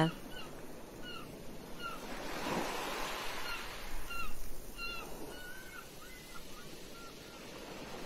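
Waves washing on the shore, swelling about two and a half seconds in and again near five seconds, under a scatter of short, high bird calls that die away after about six seconds.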